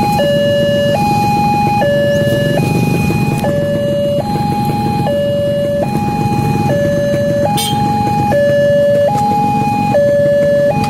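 Electronic warning alarm of an Indonesian railway level crossing sounding, alternating between a higher and a lower tone about every 0.8 seconds, over a steady low rumble.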